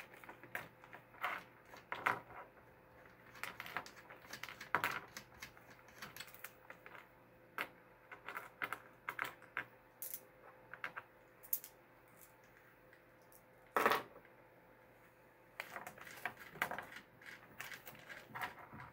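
Small steel nuts, bolts and washers clicking and clinking irregularly as they are picked out and handled, with one louder clack late on.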